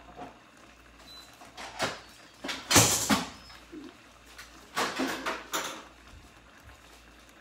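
Kitchen things being handled at a counter: knocks and clatter in three short bouts, the loudest about three seconds in.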